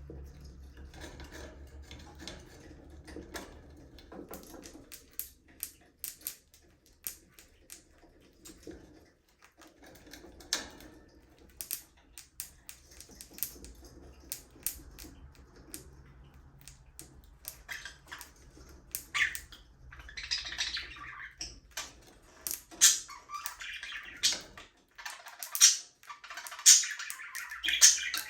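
Budgerigars: scattered sharp ticks and taps through the first half, then chirping and chattering that starts a little past halfway and grows louder toward the end.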